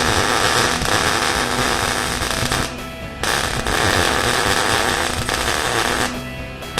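Arc welder laying weld beads, the arc crackling loudly in runs of a few seconds each, with short stops about three seconds in and again near the end.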